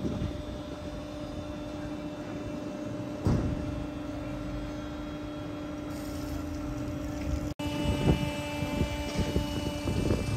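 Engine running steadily with a constant low hum, with a thump about three seconds in and several knocks near the end.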